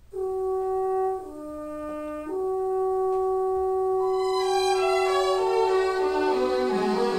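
Music played through a pair of Telefunken TL800 loudspeakers. It opens on long held notes that step down to a lower note about a second in and back up a second later. More parts join from about four seconds in and the sound builds fuller.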